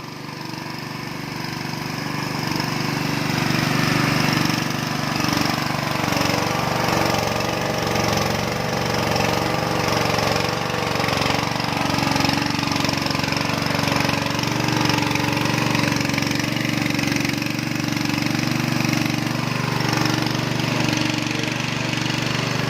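Livestock feed pellet mill running on a test run: a steady mechanical drone with a low, slightly wavering pitch, building up over the first few seconds and then holding.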